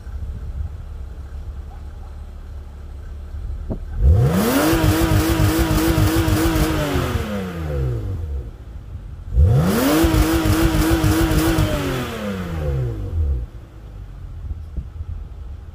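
BMW E36 engine idling, then revved hard twice. Each time it climbs quickly to the rev limiter, holds there for about two and a half seconds with the pitch wavering as the limiter cuts in and out, then drops back to idle. The limiter has just been raised in an ECU retune.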